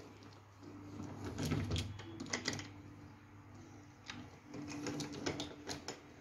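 Wooden toy train pushed by hand along a wooden railway track: its wheels rumble on the wood with scattered clicks and clacks, in a few short bursts.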